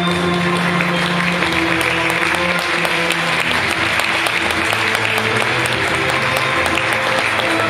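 Audience applauding in a dense patter of claps over music with long held notes.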